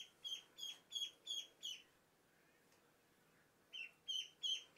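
Ducklings peeping: a rapid series of high, short peeps, each dropping in pitch, about three a second, with a pause of about two seconds in the middle.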